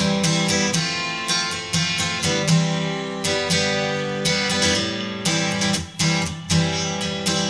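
Background music: a plucked-string instrument, like an acoustic guitar, playing a steady run of notes.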